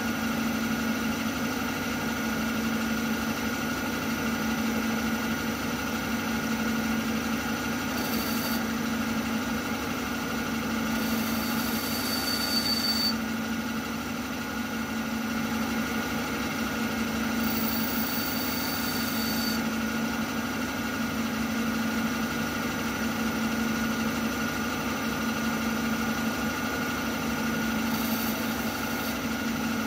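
CNC milling machine's spindle running steadily while turning a small brass workpiece: a constant motor hum with a steady whine above it. Four times, a brief high hiss with a thin whistle rises over it for one to two seconds and then drops away.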